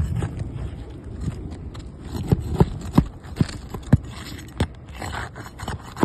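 Scraping and irregular sharp taps from work on a shingle roof, as shingles are handled and pried at during a repair test.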